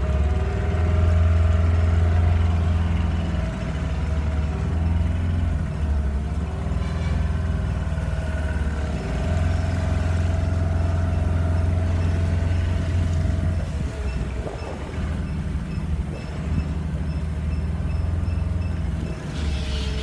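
A small river boat's engine running steadily under way, a low drone with a steady hum above it that dips slightly a few times.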